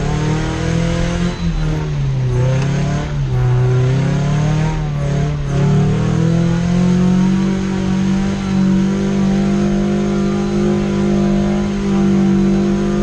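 Off-road 4x4's engine heard from inside the cab, revving up and down for the first few seconds, then held at steady, higher revs from about halfway through.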